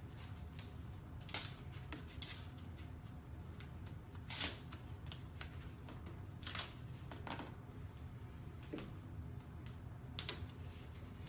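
Vinyl wrap film being handled and smoothed onto a mini fridge: scattered short scrapes and crinkles at irregular intervals, the loudest about four and a half seconds in, over a low steady hum.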